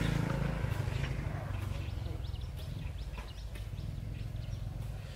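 A low engine rumble fading away, with small birds chirping over it.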